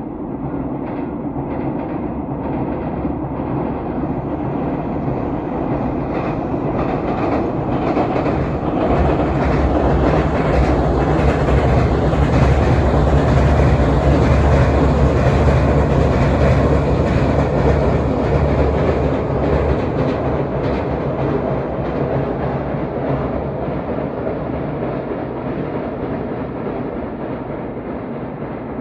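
Freight train passing on electrified line, wheels clattering over rail joints. The sound swells to a peak about midway, with a deep hum for some ten seconds as the locomotive goes by, then fades slowly as the wagons run past.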